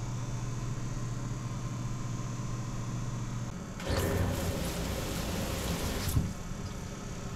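A steady low hum, then from about four seconds in a handheld shower head sprays water for about two seconds before cutting off suddenly with a sharp knock.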